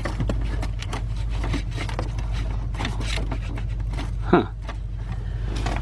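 Scraping, rubbing and clicking as a code scanner's cable is plugged into the diagnostic port under a car's dashboard, over a steady low hum, with a short grunt about four and a half seconds in.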